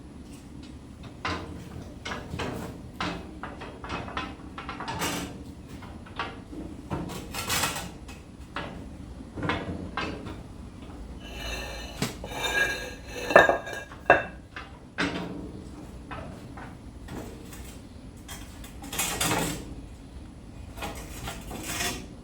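Metal parts clanking and knocking as they are moved and set in place, with irregular knocks throughout and a ringing metallic clatter around the middle.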